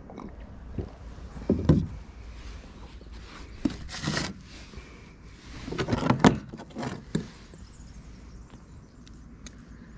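Knocks and clinks of metal camp tableware handled on the wooden deck of a plywood paddle board: a stainless steel mug set down, then a metal plate and fork picked up. The knocks are irregular, with a busier cluster about six seconds in.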